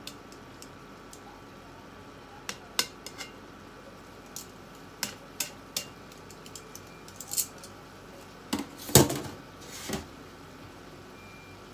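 Metal tongs clinking against a frying pan as the food in it is stirred: a run of sharp separate clicks, then a louder knock and clatter about nine seconds in.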